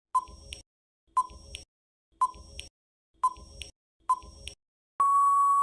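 Countdown timer sound effect: five short identical beeps about one a second, then a longer steady beep near the end.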